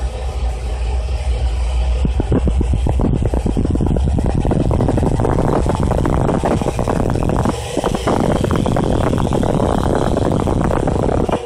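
Large sonidero sound system playing very loud, bass-heavy music, heard as a dense, steady rumble with a deep low end.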